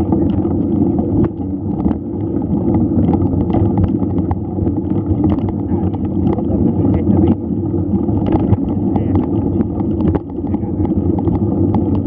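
Steady wind rumble on the microphone of a camera carried on a moving mountain bike, with frequent small clicks and knocks from the bike rattling over rough ground.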